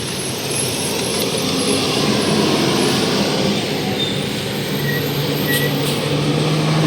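A large bus passing close by: dense engine and road noise, with a low steady drone coming in about two-thirds of the way through.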